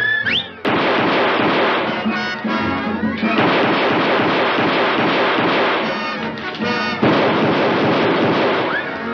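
Cartoon sound effects: a quick rising glide, then a sudden, loud, dense crashing noise that runs for several seconds, breaking briefly around three and seven seconds in.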